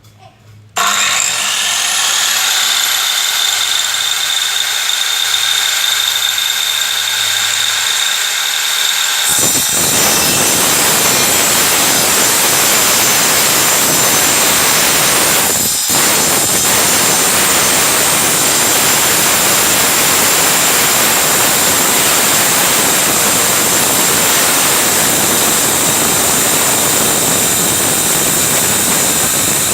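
An 800-watt circular saw with a 7-inch 60-tooth carbide-tipped (TCT) blade starts up with a rising whine and runs free. About nine seconds in, the blade bites into a 16 mm iron bar and the sound turns into a loud, harsh metal-cutting noise that continues, with a brief break at about sixteen seconds.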